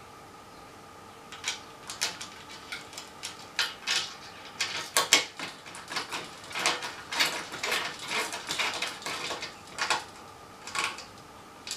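A screwdriver tightening the bolts that fix an aluminium element plate to an aluminium antenna boom: irregular metallic clicks and scrapes of the tool and hardware, starting about a second in.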